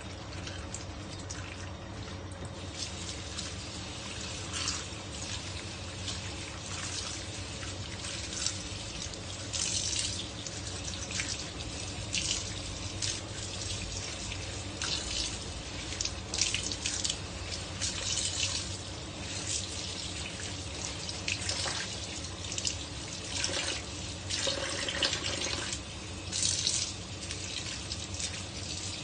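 Kitchen tap running steadily into a sink as a bunch of chili leaves is rinsed by hand under the stream, the water splashing unevenly as the leaves are moved through it.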